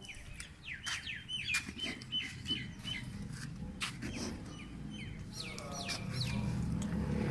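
Small birds chirping over and over in short, sharp notes that drop in pitch, with a low rumble building near the end.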